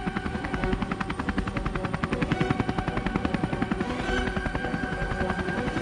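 Helicopter rotor blades chopping with a fast, even beat, over a steady engine whine.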